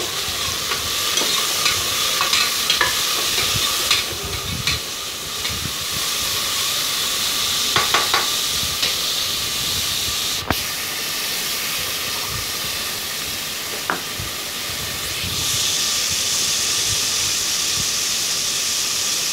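Chopped tomatoes, onions and green chillies sizzling in oil in an aluminium pressure cooker as they are sautéed to soften, with a few sharp clicks and scrapes of stirring against the pot. The sizzle grows louder about three-quarters of the way through.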